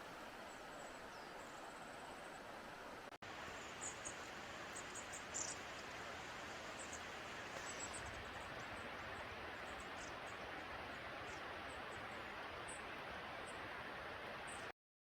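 Steady rush of a snowmelt-swollen river, with short high bird chirps over it.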